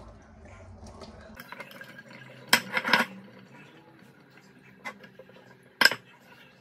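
A metal cooking pot and a wire mesh strainer clanking together as the pot is tapped out over the strainer to drain hot cooked rice: a quick cluster of sharp metal knocks about two and a half seconds in, then two single knocks later on.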